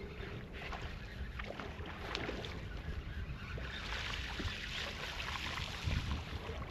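Hooked bass splashing at the water's surface as it is reeled in to the boat, the splashing growing louder about halfway through, over a low wind rumble on the microphone.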